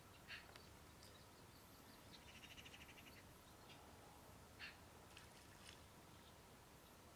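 Near silence of an open marsh, with a few faint distant chirps and one short rapid trill a little over two seconds in, from small wetland creatures.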